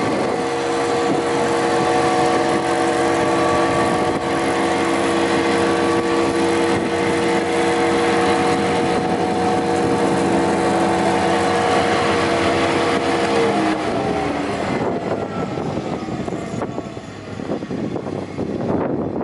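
GOMAD FDM spindle moulder's motor and spindle running free with a steady hum and whine. About two-thirds of the way through it is switched off, and the pitch falls as it coasts down, leaving only background noise.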